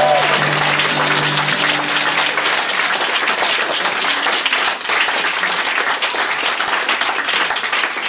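Audience clapping at the end of a song. A held acoustic guitar chord rings out under it and fades over the first couple of seconds.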